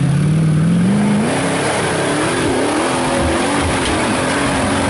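Rock bouncer buggy's engine revving hard on a steep hill climb. Its pitch rises over the first second or so, then surges up and down as the throttle is worked.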